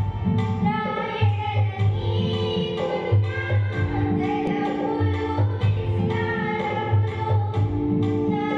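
Two women singing a Telugu Christian worship song into microphones over the church PA, accompanied by held chords and a steady low beat.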